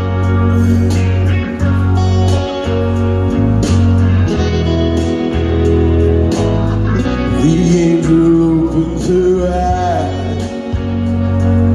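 Live amplified rock ballad through a PA: steady held bass notes and guitar under a man singing into a handheld microphone.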